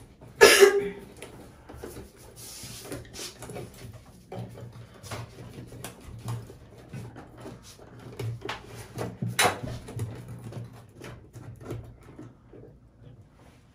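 Hands working an electrical wire in the framing at the top of a wall recess: scattered small clicks, taps and rustles, with a louder knock about half a second in and another about nine and a half seconds in.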